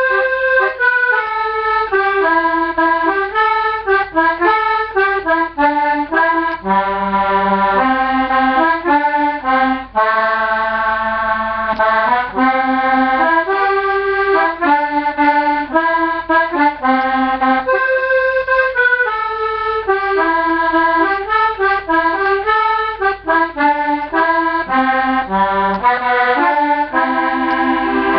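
Hohner three-voice B/C diatonic melodeon (button accordion) playing a quick folk tune, melody notes changing several times a second over bass notes. The tune stops abruptly at the very end.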